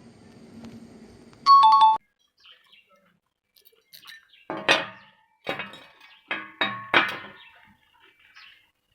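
A short two-note chime stepping down in pitch, cut off abruptly, then about five sharp clinks with a brief ring, like metal being struck.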